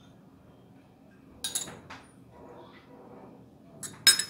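A metal spoon clinking against glass and steel kitchenware: a few sharp clinks about a second and a half in, a quieter stretch, then the loudest clinks near the end.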